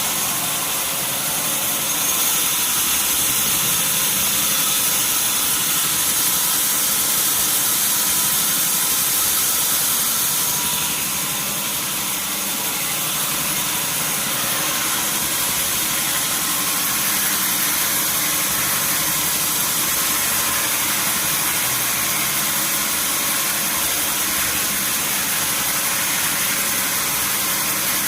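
Sawmill machinery running steadily, a continuous mechanical noise with a strong high hiss and no separate knocks or cuts.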